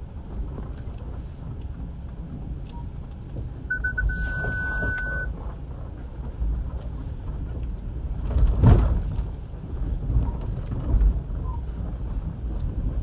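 Four-wheel-drive vehicle driving a rough off-road track: steady low engine and track rumble with scattered knocks. A high steady tone sounds for about a second and a half around four seconds in, and a louder burst of noise comes a little before nine seconds in.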